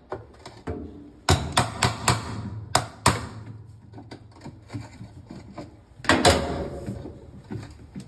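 Sharp clacks and knocks of hard plastic as the agitator of a top-load washing machine is handled: several in quick succession a second or so in, and another louder cluster about six seconds in.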